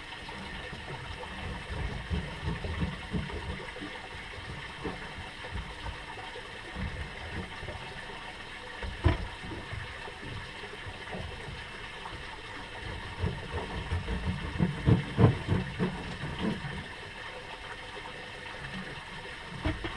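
Sounds on a small fishing boat at rest: a steady mechanical hum and water against the hull, with irregular knocks and thumps from gear being handled on deck. The loudest knock comes about nine seconds in, and a cluster follows around fifteen seconds in.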